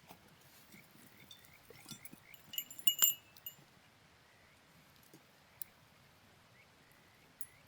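Small metal objects clinking together: a quick cluster of ringing metallic chinks around the middle, the loudest about three seconds in, over a faint steady hiss.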